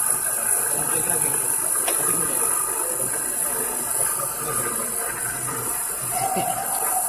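Steady workshop machinery noise with a constant high hiss and faint voices in the background; about six seconds in, a short steady whine sounds for under a second.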